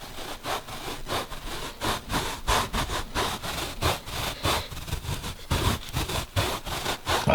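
Parmigiano cheese being grated by hand on a metal grater: repeated rasping strokes, about two or three a second.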